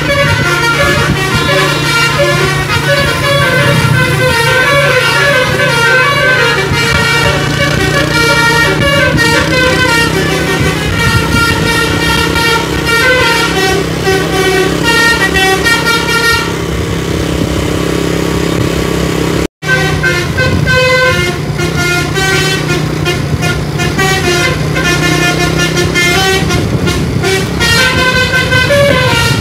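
Indonesian bus 'telolet' horn, a basuri multi-tone air horn, playing rapid melodic runs of changing notes over a steady low engine hum. The tunes thin out briefly about two-thirds of the way through, the sound cuts out for an instant, and then the horn melodies start again.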